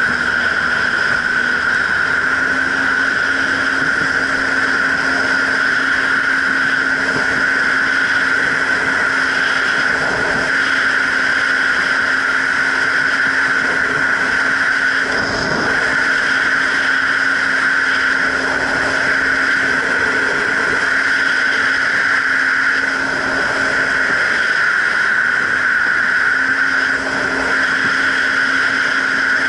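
Jet ski engine and jet pump running at a steady cruising speed over the rush of water. The engine note holds level, with a short dip about 24 seconds in.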